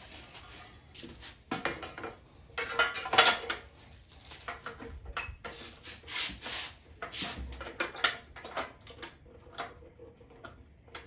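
Irregular metal clinking, rattling and scraping of hand tools and parts, as a pull-start housing is fitted and fastened onto a Briggs and Stratton mower engine.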